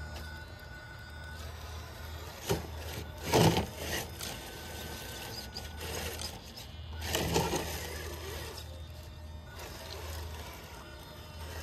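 Traxxas TRX4 Bronco RC crawler working over rocks and dry leaves: tyres and chassis crunching and scraping on stone in a few short bursts, loudest about three and a half seconds in and again past seven seconds, with a faint high motor whine that comes and goes.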